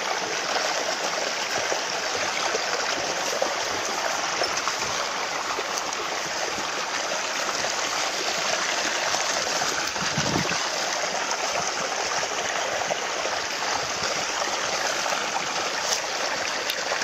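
Water pouring steadily from an inflow pipe into a pond, a constant splashing rush of water.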